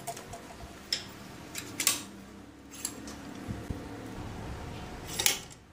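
A few light, separate clicks and clinks of metal tools and a steel workpiece being handled and set in place.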